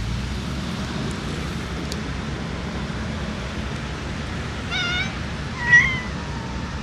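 Domestic cat meowing twice in quick succession about five seconds in, the second meow louder. A steady low background noise runs underneath.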